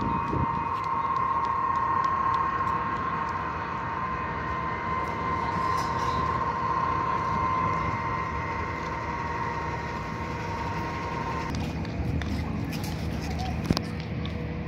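Steady high-pitched turbine whine from an aircraft running on the airfield, with a second tone above it over a constant rushing background. It cuts off suddenly about eleven and a half seconds in, leaving a broad hubbub with a few sharp clicks.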